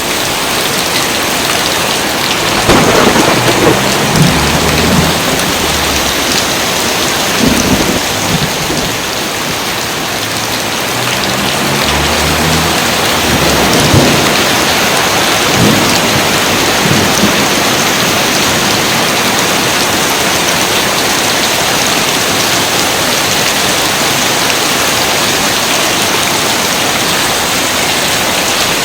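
Steady heavy rain with thunder rolling low several times in the first half or so, loudest about three seconds in and again about fourteen seconds in, then rain alone.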